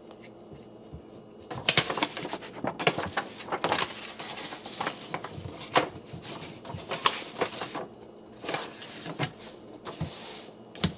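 Hard plastic parts of a Transformers Legacy Twin Twist action figure clicking and rattling in the hands as it is twisted and folded through its transformation, starting about a second and a half in. Near the end a paper instruction sheet is rustled.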